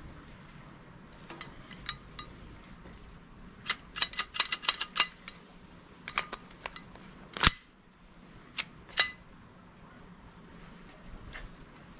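Glock 17 replica BB pistol being handled, its plastic and metal parts clicking: a quick rattle of about ten sharp clicks in just over a second, scattered clicks before and after, and one loud sharp snap a little past halfway.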